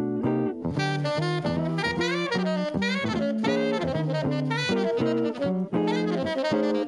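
Tenor saxophone playing a fast, winding jazz line over archtop electric guitar accompaniment. The saxophone comes in strongly less than a second in.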